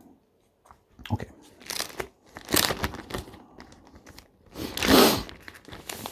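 Plastic packaging crinkling and crunching in a series of rustling bursts, the loudest about five seconds in, as a replacement laptop LCD panel is handled and unwrapped.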